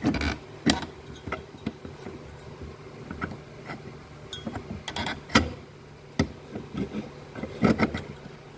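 Irregular light clicks and knocks over a steady low hum, the sharpest knock about five seconds in.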